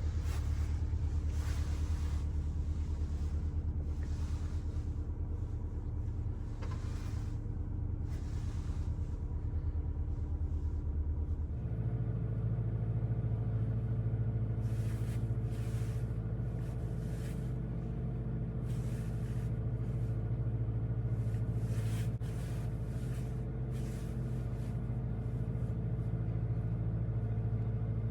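Volkswagen Golf 8 GTI's 2.0-litre turbocharged four-cylinder petrol engine running at a steady cruise. About twelve seconds in, its drone steps up suddenly to a higher pitch and holds there.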